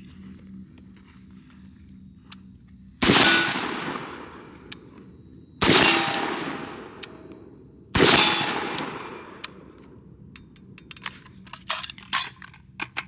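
Three rifle shots from a 14.5-inch BCM AR-15 fitted with a Surefire muzzle brake, about two and a half seconds apart, each followed by a long fading echo. A run of light clicks and knocks follows near the end.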